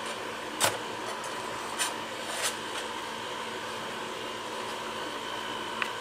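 Laptop cooling pad's two fans running with a steady whir, broken by four short clicks as its hinged metal legs are handled.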